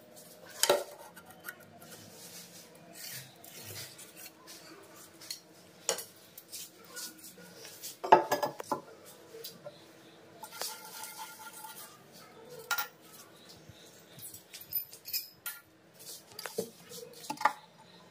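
Scattered knocks, clicks and clinks of hard fittings being handled and set down on a stone countertop while a ceramic wash basin and chrome pillar tap are fitted. The loudest cluster of knocks comes about eight seconds in.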